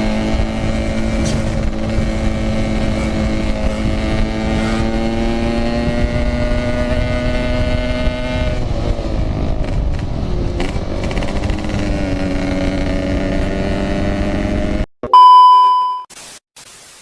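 Yamaha RX King 135cc two-stroke single-cylinder motorcycle engine running under way. Its pitch climbs as it accelerates, eases off about nine seconds in, then climbs again. The engine sound cuts off suddenly near the end, and a loud electronic beep, the loudest sound here, rings for about a second.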